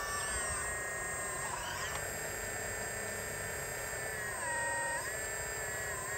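Electric drive and pump motors of an RC hydraulic excavator whining steadily as the model climbs on its tracks. The pitch dips briefly a couple of times as the load on the motors rises.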